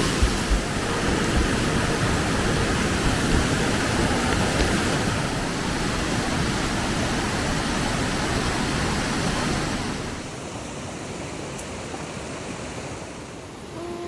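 Steady rushing of water, dropping noticeably in level about ten seconds in.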